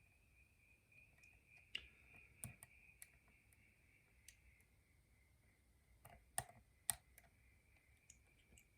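Faint, scattered clicks of a pick working the pins of a six-pin challenge lock held under tension, with two sharper clicks about two-thirds through. A faint steady high-pitched tone sits underneath.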